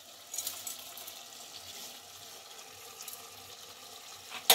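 Chicken pieces frying in hot oil in a pan: a steady sizzling hiss with crackles in the first second. A single sharp knock comes near the end.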